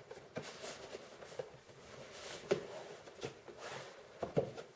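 Cardboard scraping and rustling as a boxed microphone kit is slid out of its outer cardboard sleeve, with a few soft knocks, the clearest about two and a half seconds in and near the end.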